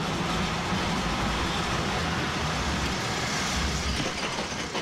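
Amusement-ride car rumbling and rattling along its track at speed, a steady rough noise from the bumpy ride.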